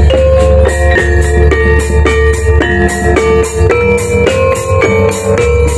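Javanese gamelan accompanying a kuda lumping dance, played through a sound system: saron metallophones struck with wooden mallets ring out a steady run of bright notes over bonang kettle gongs and drums, with a regular beat of sharp strikes.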